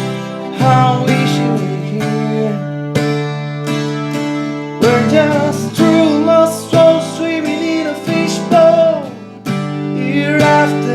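Twelve-string acoustic guitar strummed in sustained chords, with a voice singing along over it.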